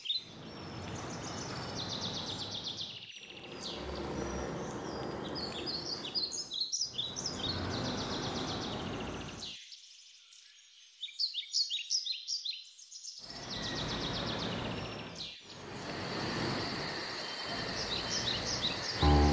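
Small birds chirping in quick repeated bursts over a steady background of outdoor noise. The sound cuts off abruptly several times, with one gap of near silence of about three seconds around the middle.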